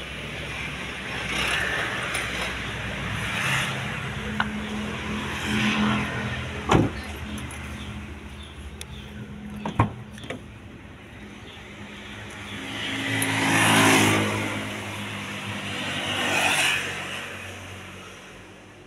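Road traffic: several vehicles passing one after another, each swelling and fading away, the loudest about two-thirds of the way through. Two sharp knocks come near the middle.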